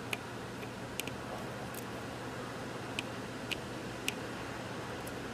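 Light, sharp ticks of metal tweezers and a soldering iron on a small circuit board while surface-mount resistors are desoldered, about six scattered ticks over a steady low hum.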